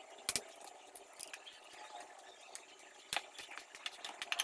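A few sharp clicks and knocks of kitchen utensils and containers being handled: one about a third of a second in, another a little after three seconds, and several close together near the end, over quiet room tone.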